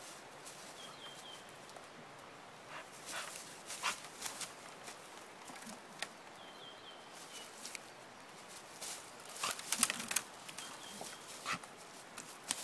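A dog rustling through dry fallen leaves and worrying at branches, with crackles and snaps of twigs in clusters about three seconds in and again near ten seconds.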